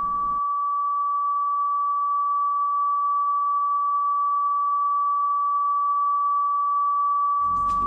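A single steady, high-pitched electronic tone held at one pitch: the audio-frequency signal played to the microbes to irradiate them. Music comes in under it near the end.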